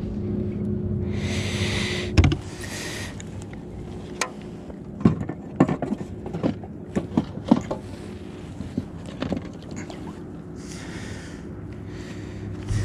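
Steady electric hum from the kayak's bow-mounted trolling motor, which cuts off with a knock about two seconds in. Then a string of sharp clicks and knocks on the plastic kayak as a caught bass and gear are handled.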